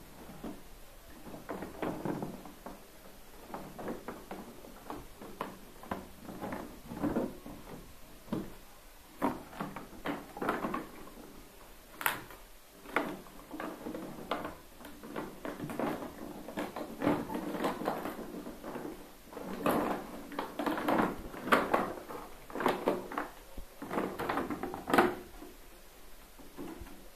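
Cardboard toy box and clear plastic packaging tray handled and opened by hand: irregular rustling, scraping and light knocks, busiest in the second half.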